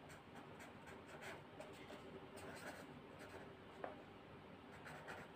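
Faint scratching of a pen writing on notebook paper, with a light tap about two-thirds of the way through.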